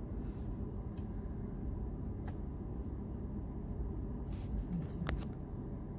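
Low, steady rumble of a car's engine and road noise heard from inside the cabin as the car creeps forward, with a few faint clicks.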